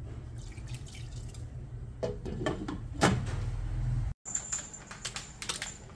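Water heating in a steel stockpot on a gas stove, a steady low rumble with light bubbling and drips, then tongs knocking against the pot as spaghetti is stirred in the boiling water, the loudest knock about three seconds in. The sound drops out for a moment about four seconds in and comes back quieter, with a faint high whine and sharp clicks.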